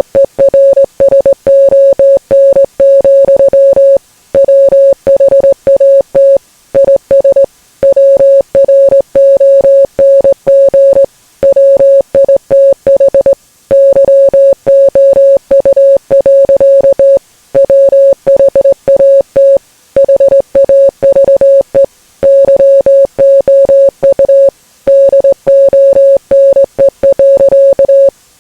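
A loud, single-pitched electronic beep tone keyed rapidly on and off in dense groups separated by short pauses, in the pattern of fast Morse code.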